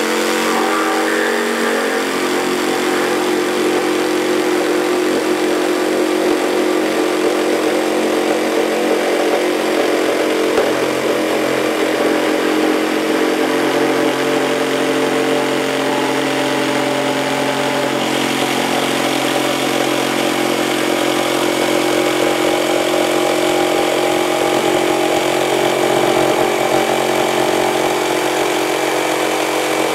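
Mafell P1CC 900-watt jigsaw running steadily under load, its blade cutting through 54 mm thick chestnut.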